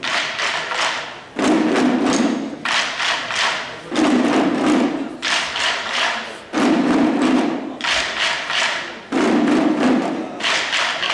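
An ensemble of Chinese waist drums beaten in unison with sticks, in fast runs of strokes. The phrases repeat about every two and a half seconds, a deeper-sounding run alternating with a brighter one.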